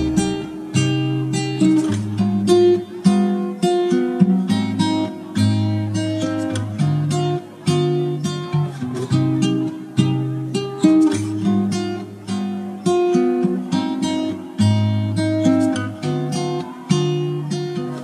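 Background music: acoustic guitar, a quick even run of plucked notes over changing bass notes.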